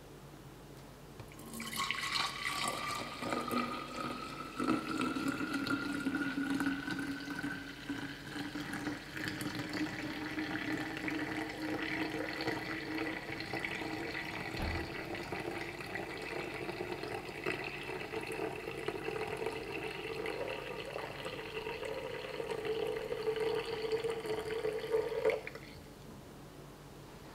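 Milk pouring from a steel pan into a narrow-necked vacuum flask: a steady stream of liquid whose ringing pitch rises slowly as the flask fills. It stops near the end.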